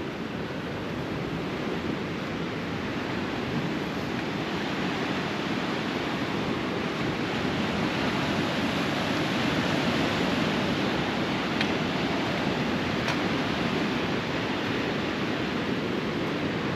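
Sea surf washing onto a rocky shore, a steady rush that swells gradually toward the middle.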